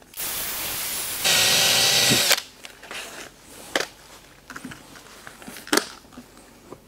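Power drill spinning a foam buffing pad for about two seconds, stepping up to a louder, higher whine partway through, then cutting off. After that come faint rubs and a few clicks of a microfiber cloth wiping the headlight lens.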